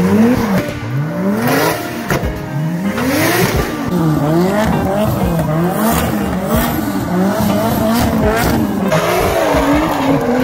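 Tuned cars drifting: the engine revs rise and fall over and over as the throttle is worked, with tyre squeal.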